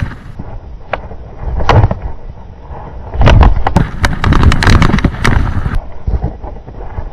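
A mountain bike ridden fast down a rough trail, heard from a camera mounted on the bike: wind rumbles on the microphone while the bike and tyres rattle and knock. There is a single hard knock about two seconds in, then a loud, dense clatter from about three to six seconds in.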